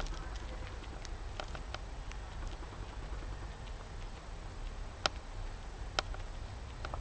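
Baby guinea pig nosing and nibbling in loose hay: soft rustling with scattered small clicks and two sharper clicks about five and six seconds in, over a low steady hum.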